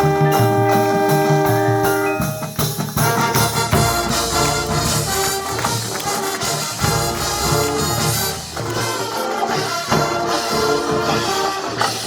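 A high school band playing: a held brass chord that breaks off about two seconds in, then a busier, rhythmic passage with percussion and tambourine-like jingles over the winds.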